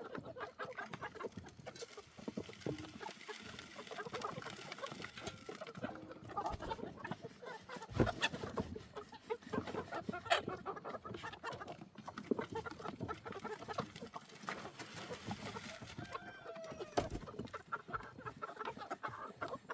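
Backyard chickens clucking steadily as they feed, with many short overlapping calls. Two sharp knocks stand out about eight and ten seconds in.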